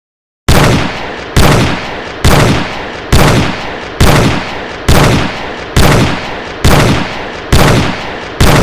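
Barrett M82 semi-automatic .50-calibre sniper rifle firing ten shots, evenly spaced a little under a second apart, each with a long echoing tail. These are game gun sound effects.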